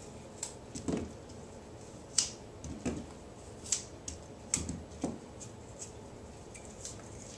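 Granny Smith apple slices being popped out of a handheld apple corer-slicer and set down on the counter: light clicks and taps, one every second or so.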